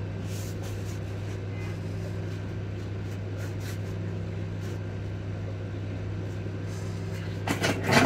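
Steady low electrical hum, with a few faint clicks through it and a quick cluster of louder clicks and knocks near the end.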